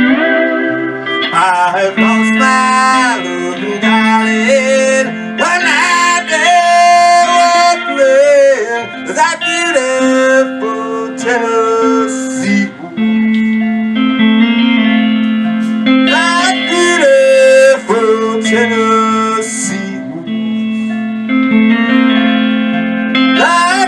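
Band music led by guitars: a held low note shifts every second or two beneath melody lines that bend in pitch.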